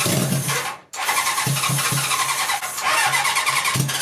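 Electric starter cranking a motorcycle four-cylinder engine in two goes, a short one that cuts off just before a second in and a longer one right after. The engine fires now and then in low thuds but does not catch and run.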